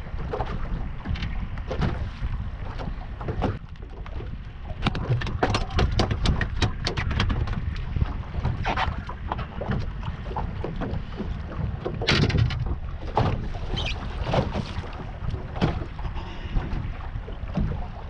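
Wind buffeting the microphone in a steady low rumble. Over it come scattered sharp clicks and knocks: a dense run about five seconds in and a louder knock about twelve seconds in.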